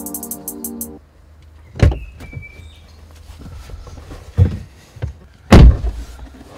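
A car door being opened and a person climbing into the seat, with a few knocks and thumps, then the car door shutting with the loudest thump about five and a half seconds in. The tail of electronic music fades out in the first second.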